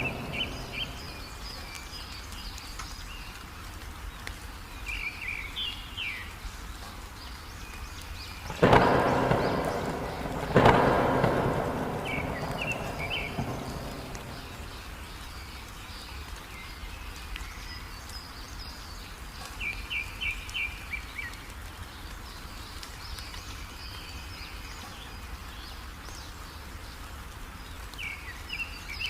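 Two sudden claps of thunder about nine and eleven seconds in, each rumbling away over a few seconds, over steady heavy rain. A small songbird gives short, high chirping phrases every several seconds.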